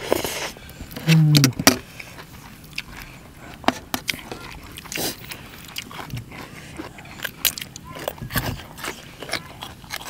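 A slurp from a spoon of spicy salad dressing, a short voiced 'mm' about a second in, then scattered crisp bites and chewing of raw vegetables such as long beans and cucumber, eaten with glass-noodle seafood salad.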